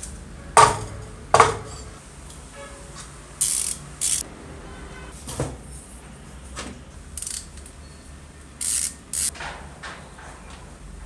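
Metal parts of an old saw's electric motor being handled and set down during disassembly. Two sharp knocks in the first second and a half, then lighter clinks and several short scraping rattles.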